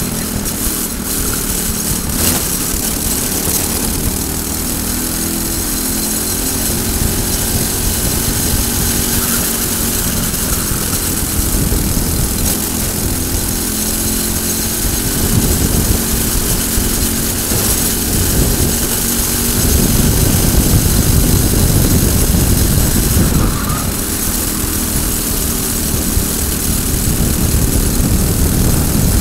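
Briggs & Stratton single-cylinder four-stroke kart engine running hard at around 5,000 rpm, its pitch rising and falling with the throttle through the corners, with wind rushing over the onboard camera microphone.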